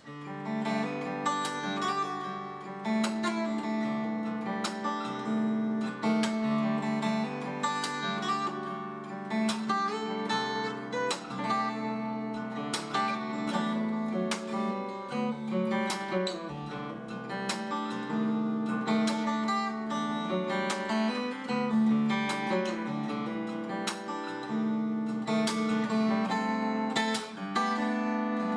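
A steel-string acoustic guitar played fingerstyle with fingerpicks: a solo instrumental melody picked over ringing bass notes, with crisp plucked attacks throughout.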